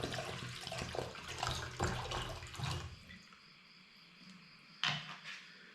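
Water pouring into a Stanley cook pot, splashing for about three seconds and then stopping, followed by a single sharp knock a little before the end.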